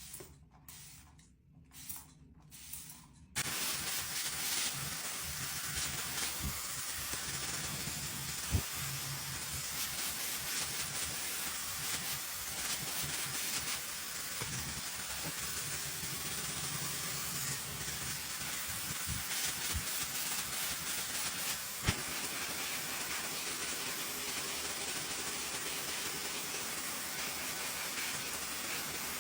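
Tideway hair dryer switched on about three seconds in, then running with a steady hiss of blowing air, with one or two faint clicks.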